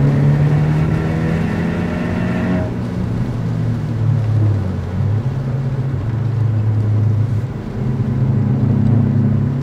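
Alfa Romeo MiTo engine heard from inside the cabin at track speed. The engine note changes as the throttle comes off and back on, and its upper tones drop away about three seconds in.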